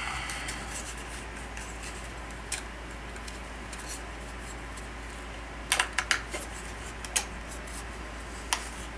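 Fiber-filled plastic AK upper hand guard being worked and pushed onto the rifle, giving scattered scrapes and sharp clicks, with a cluster of clicks about six seconds in, over a steady low hum.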